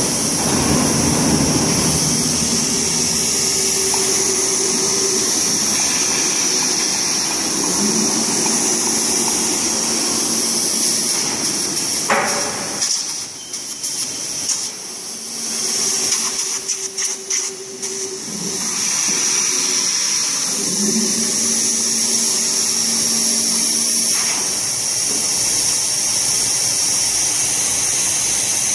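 CNC V-grooving machine running on stainless steel plate: a steady high hiss with a motor hum that swells and holds for a few seconds, several times over, as the tool carriage makes its passes. The sound drops and turns choppy for a few seconds about halfway through.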